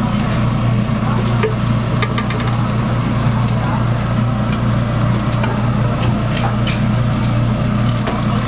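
Steady low mechanical hum under the faint sizzle of an omelette frying, with scattered sharp clicks of cooking utensils.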